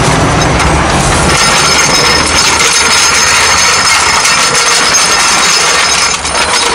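A steel trolley floor jack is pushed across rough asphalt. Its small wheels roll with a continuous rattling clatter, which eases off near the end.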